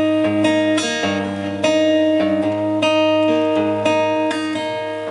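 Acoustic guitar played solo, strummed chords struck about every half second and left ringing into one another.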